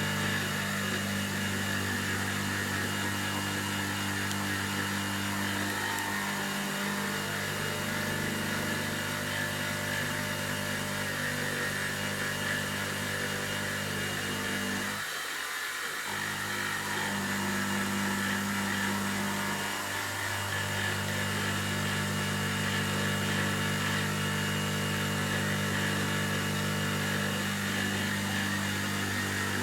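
Optimum BF16 milling machine under CNC control roughing aluminium: the spindle motor hums steadily under the hiss of the cut. The hum drops out briefly three times, longest for about a second halfway through.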